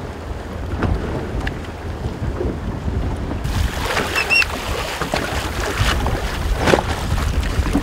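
Wind buffeting the microphone on a boat at sea, with choppy water splashing against the hull. A brief high chirp sounds about four seconds in.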